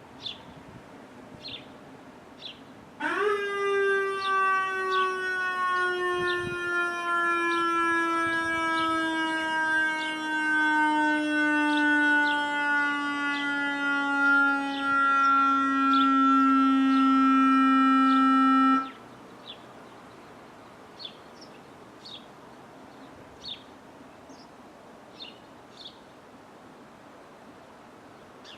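Electronic siren tone from a Whelen ESC-864 controller driving a single 100-watt speaker driver. About three seconds in it sweeps up sharply, then holds one steady tone that sinks slowly in pitch, its loudness wavering, for about sixteen seconds before cutting off abruptly. Small birds chirp throughout.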